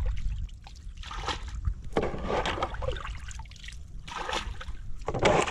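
Water trickling and splashing around a small boat on a pond, in several separate splashes a second or so apart with trickling between them.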